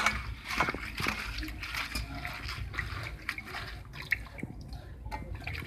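Hands swishing and rubbing spinach leaves in a steel dish of water, with small irregular splashes and sloshing: the leaves being washed free of clinging soil.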